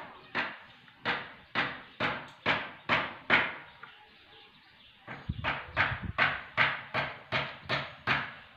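Repeated sharp knocks, something being struck about twice a second: a run of seven, a pause of about two seconds, then a run of about eight more.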